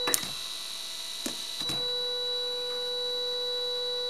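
Sliding-gate DC motor running on the workbench under the H-bridge driver, with a steady high electrical whine and hum. A few clicks come in the first two seconds, after which the tone settles and holds.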